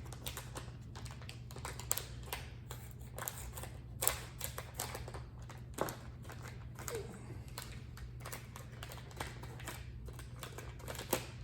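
Plastic blind-bag toy packaging crinkling and tearing as it is opened by hand: a run of irregular crackles and small clicks.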